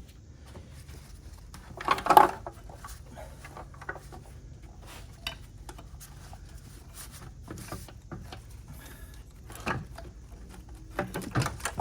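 Scattered metallic clinks and knocks of tools and engine parts being handled, with a louder clatter about two seconds in and another run of knocks near the end.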